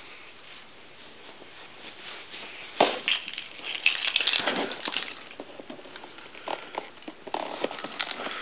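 Packaging of a new laptop being handled and opened: crinkling and rustling with scattered sharp crackles, setting in about three seconds in after a quieter start.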